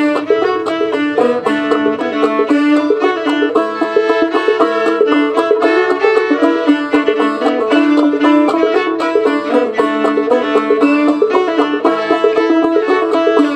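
Old-time tune played on a homemade short-scale clawhammer banjo with a calfskin rawhide head, with a fiddle alongside, in an instrumental break with no singing.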